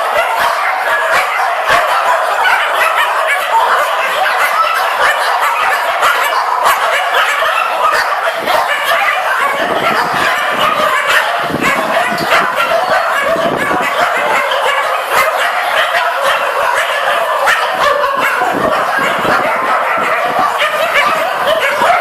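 Many dogs barking and yapping at once, a dense, continuous din of overlapping barks with no break.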